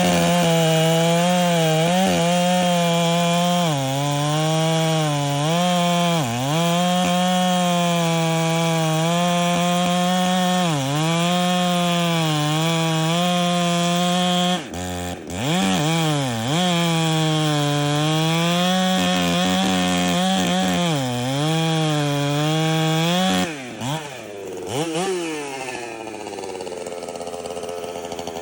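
Two-stroke chainsaw run on Q16 race gas, cutting a large stump at full throttle. The engine pitch dips again and again as the chain loads up in the wood, and drops off briefly about halfway. Near the end the saw comes off the throttle, quieter and falling in pitch, with a couple of short blips.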